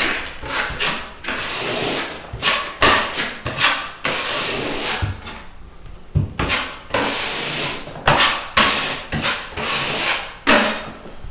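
Steel 6-inch drywall knife scraping across drywall, pressing and smoothing joint compound into the gaps between sheets, in repeated short strokes with a brief pause about halfway through.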